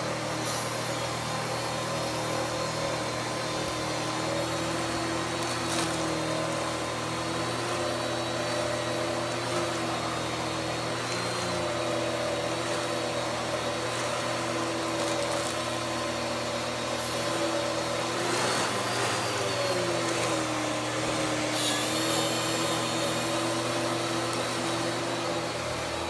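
Kenmore Magic Blue DX bagged canister vacuum running on maximum suction with its power head's brush roll on, vacuuming carpet. A steady motor whine whose pitch sags briefly a few times, most clearly about two-thirds of the way through, as the load changes.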